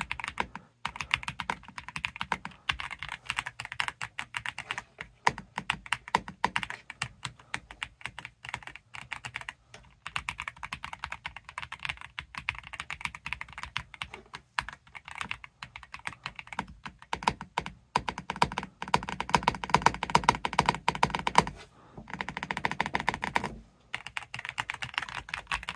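Typing on a Redragon K686 Pro SE gasket-mounted mechanical keyboard: a fast, continuous run of keystrokes with a few short pauses.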